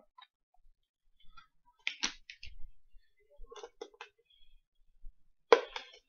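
Clicks and light knocks of a small plastic electric coffee grinder being turned over and handled: a few scattered taps and rattles, the loudest a sharp knock near the end.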